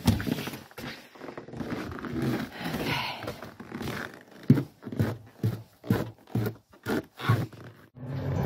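A door knocks shut, then there is rustling handling noise and a run of about ten heavy footsteps in snow, roughly three a second, from about four and a half seconds in.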